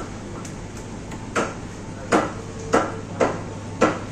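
Footsteps on a hard floor: sharp, evenly paced heel clicks about every half second, starting a little over a second in, over a steady low hum.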